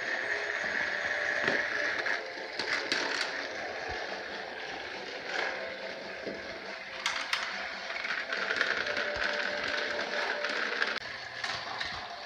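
Battery-powered TrackMaster toy train motors whirring steadily as the engines run along plastic track, with scattered sharp clicks.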